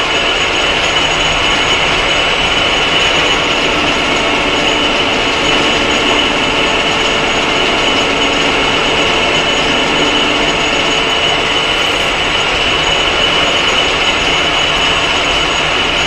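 Clausing 1500 metal lathe running under power while a cutting tool is fed into the spinning stock to cut a groove. Steady machine noise with a constant high whine.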